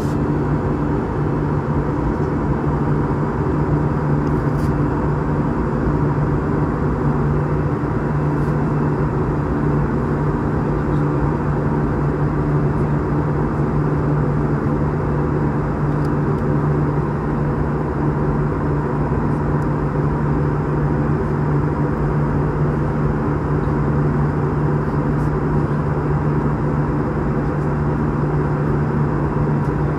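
Jet airliner cabin noise: a steady drone of engines and airflow, heard from inside the passenger cabin, with a steady low hum running through it.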